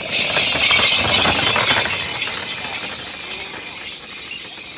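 A pair of racing water buffalo pulling a wooden cart gallops past close by: a dense clatter and jangle of hooves, cart and harness bells. It is loudest in the first two seconds, then fades away.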